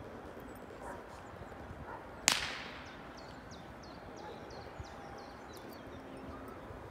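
A single gunshot crack about two seconds in, sharp and dying away over about half a second. It is a shot fired to test the dog's steadiness under gunfire.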